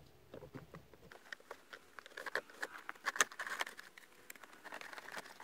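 Pleated cabin air filter scraping and rustling as it is slid by hand out of its plastic housing, with many small clicks and crinkles, busiest in the middle.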